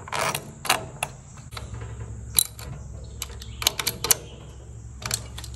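Sharp clicks and knocks of metal parts being handled on an outboard motor's lower unit, with a quick run of clicks past the middle. A low steady hum comes in about one and a half seconds in.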